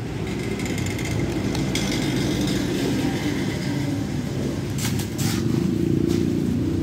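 A motor vehicle's engine running steadily, road traffic noise, with a few short clicks about five seconds in.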